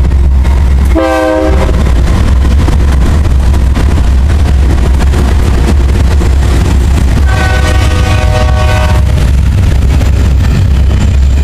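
Diesel freight locomotive air horns: a short multi-tone blast about a second in and a longer one of nearly two seconds about seven seconds in. Between them runs the steady low rumble of the passing freight trains.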